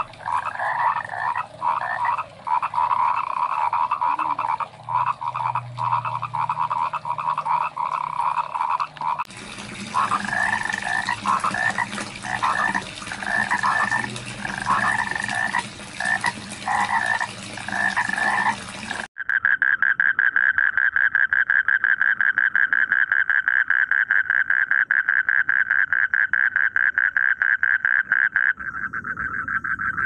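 Frogs calling in spliced recordings. First comes a dense chorus of croaks. From about nine seconds in there are short bursts of croaking about once a second. From about nineteen seconds a single fast, even, rattling trill takes over.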